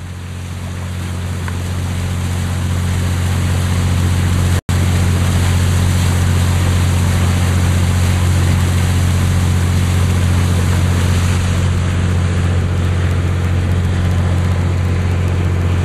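Boat engine running with a steady low drone, mixed with the rush of water along the hull and wind noise on the microphone. It fades in over the first few seconds and cuts out for an instant about four and a half seconds in.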